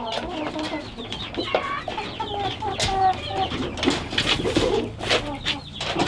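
Several chickens clucking in short, repeated calls over a steady low hum.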